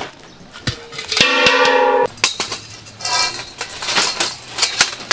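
Metal clanking as steel stall-frame parts are handled and set together, several strikes ringing on in bright tones, the loudest a ringing clang a little after a second in: hollow square steel tubes knocking against a metal stand.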